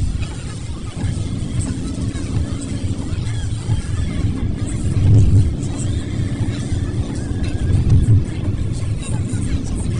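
Car driving, heard from inside the cabin as a steady low rumble of road and engine noise that swells briefly twice.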